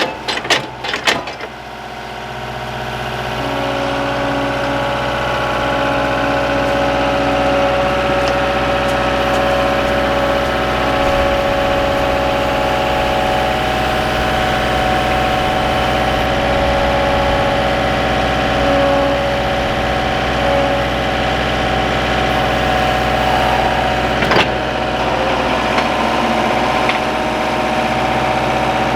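Skid steer engine running steadily, after a few sharp knocks in the first second or so; another knock comes about 24 seconds in.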